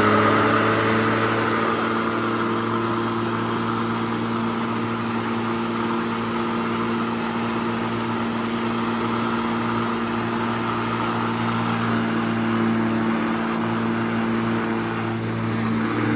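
Lightweight corded electric lawnmower's motor running steadily just after start-up: an even hum with a thin high whine over it.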